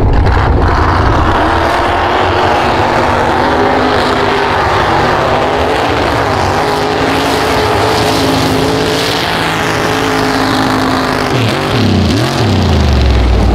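Mega truck's engine at high revs, running hard under full load as the truck climbs a snowy hill with its tyres spinning through the snow. Near the end the revs drop sharply and climb straight back up.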